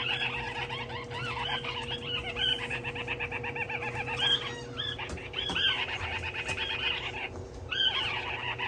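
Many parrot chicks chirping at once, a dense chatter of short, repeated arching calls, over a faint steady hum.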